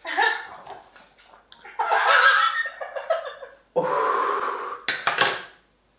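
A man's pained wordless vocal sounds and heavy breathing, with a harsh forced breath out about four seconds in and a sharp burst of breath near the end, as he reacts to the burn of hot chili sauce.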